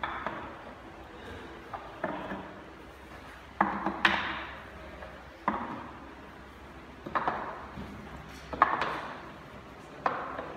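Wooden pegs knocking into the holes of a wooden climbing pegboard as a climber moves up it peg by peg, a hard knock about every one and a half seconds, each ringing on briefly.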